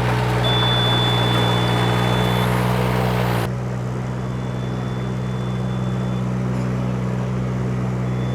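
Heavy equipment engine running steadily while moving, with a high warning beep sounding in long tones of about two seconds on and two seconds off. About three and a half seconds in, the hiss above the engine drops away and the engine note dips slightly.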